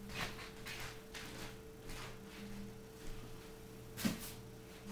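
A person moving about off camera: faint light knocks and shuffles about every half second, with one sharper knock about four seconds in, which fits a basket of cleaning bottles being set down. A steady low hum runs underneath.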